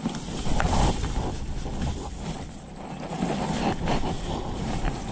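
Rice plants rustling and brushing against the microphone, with a low rumble throughout and a few faint clicks.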